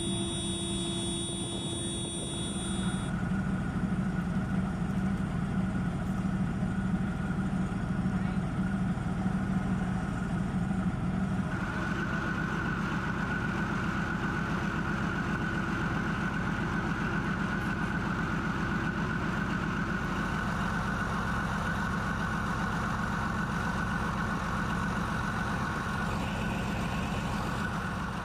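Heavy armoured vehicle's diesel engine running steadily at idle: a low hum with a steady high whine over it. The sound shifts a little twice, about three and eleven seconds in.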